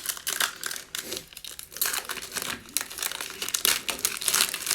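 The foil wrapper of a trading card pack crinkling and tearing as it is opened by hand, an uneven run of crackles.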